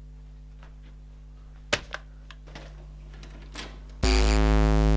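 A steady low electrical hum with scattered faint clicks and two sharp clicks a little under two seconds in, then, about four seconds in, a sudden loud harsh electric buzz that runs on.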